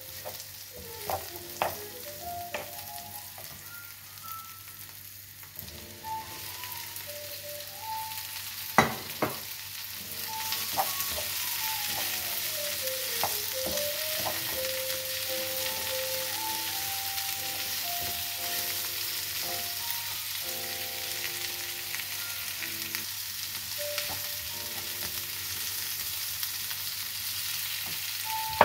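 Onions frying in a nonstick pan, stirred with a wooden spoon, with a few sharp knocks of the spoon and a loud knock about nine seconds in. About ten seconds in, the sizzling turns louder and stays that way as chopped red peppers go into the hot pan.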